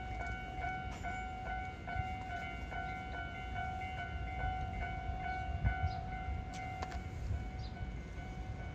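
Japanese railway level-crossing warning bell ringing in a quick, even beat of about two strokes a second, over a low rumble. The bell is the crossing's signal that a train is approaching.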